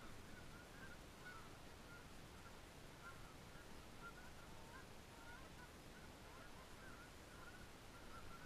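A flock of geese honking faintly in the distance: many short calls, one after another and overlapping, with a few lower-pitched calls in the middle.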